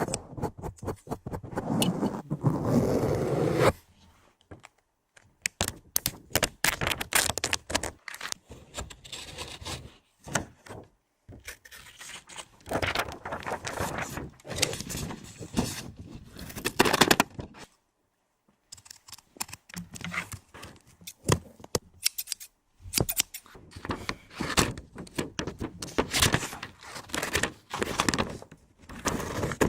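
Close-miked ASMR trigger sounds: objects handled right at the microphone in irregular clicks, scrapes and rustles, broken by short pauses.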